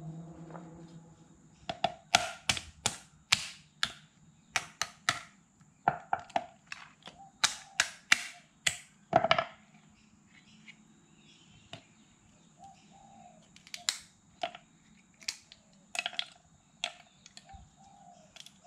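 Small hammer cracking the shell of a cooked mud crab's claws on a wooden chopping board: a quick run of sharp cracks and knocks for several seconds, then a pause and a few more scattered cracks near the end.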